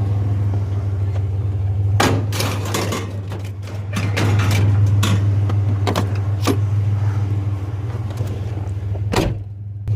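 Pickup truck engine idling with a steady low hum, with a few sharp knocks and clatters of items being handled about two to three seconds in, again in the middle, and once near the end.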